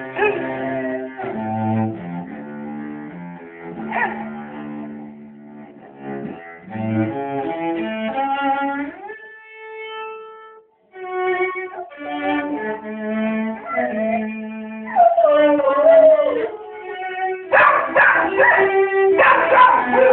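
A cello is played in slow, held notes while a dog howls along with it, the howls wavering and gliding down in pitch. The howling and the playing grow louder and busier near the end.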